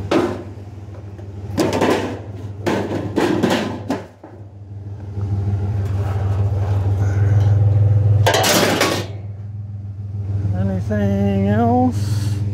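A pickup truck's engine humming steadily as it drives slowly, louder for a few seconds in the middle, with several short bursts of noise and a brief voice-like sound near the end.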